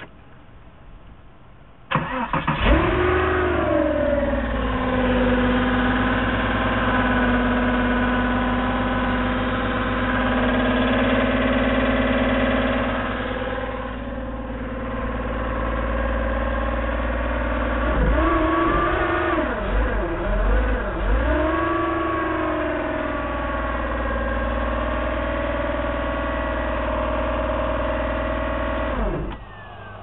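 1999 Porsche Boxster's flat-six engine starting about two seconds in and running with a horrendous noise that goes up and down with the revs, blipped a few times past the middle and shut off just before the end. The noise comes from the 5HP19 Tiptronic transmission: its front pump bearing has spun and fused to the torque converter.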